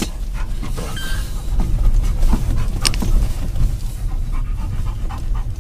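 Inside a car cabin on a rough dirt road: a steady low rumble of engine and tyres, with a sharp knock about three seconds in as the car bumps along. A dog pants inside the car.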